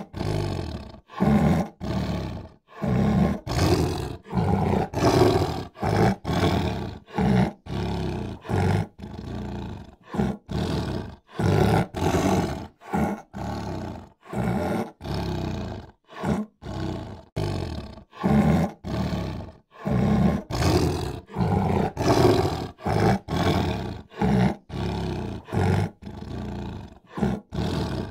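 Big cats roaring in a rapid series of short bursts, one or two a second, each cut off abruptly.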